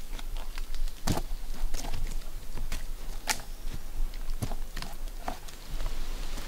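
Irregular knocks, clicks and scrapes of a climber's boots and rope against the bark of a chicle tree as he hauls himself up. Near the end they give way to a steady hiss.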